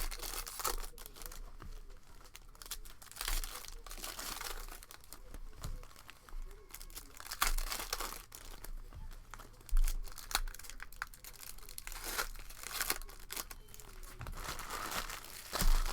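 Crinkling and tearing of trading-card pack wrappers as packs are opened, in irregular rustles with sharper crackles now and then.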